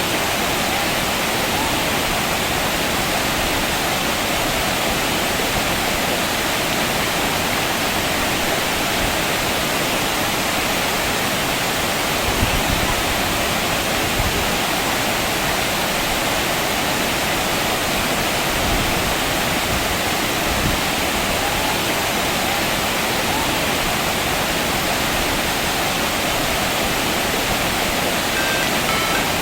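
Waterfall pouring: a steady, unbroken rush of falling water, with a couple of faint low knocks about halfway through.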